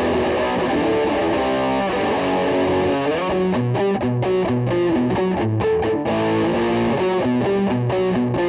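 Replica Gibson Les Paul Custom electric guitar, fitted with a new control assembly and freshly set up, played through distortion: held notes at first, then from a few seconds in a repeating line of short low notes under higher ones.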